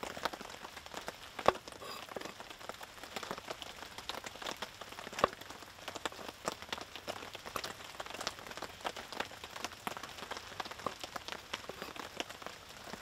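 Steady rain pattering in many small, irregular drops. Two sharper knocks come about a second and a half in and about five seconds in, from a knife cutting nameko mushrooms on a wooden board.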